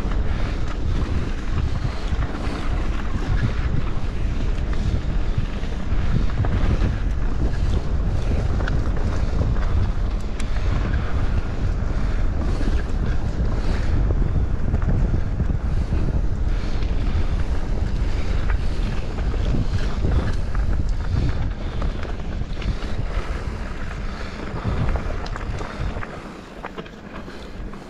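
Wind buffeting the microphone of a mountain bike's action camera while riding along a dirt and gravel singletrack, with tyre rumble and small knocks and rattles from the bike. The rushing dies down about two seconds before the end.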